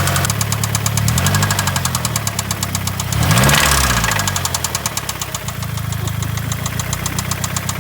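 Mazdaspeed3's turbocharged 2.3-litre four-cylinder idling through a resonator- and second-cat-deleted exhaust with a rapid, steady knock from a spun rod bearing after the engine ran out of oil. It is blipped briefly about a second in and revved higher about three and a half seconds in, then drops back to idle.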